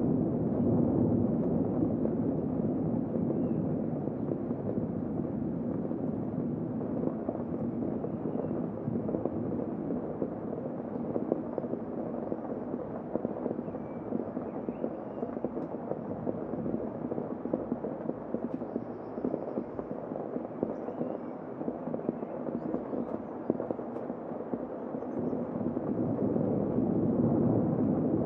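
Heavy rain falling, a steady, muffled rush heard from indoors through a closed window.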